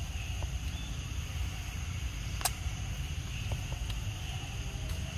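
Outdoor background: a steady low rumble with a steady high insect drone, and one sharp click about two and a half seconds in.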